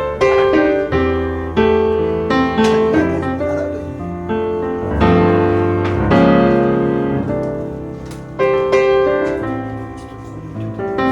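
Background piano music: chords struck and left to decay, with a steady bass line.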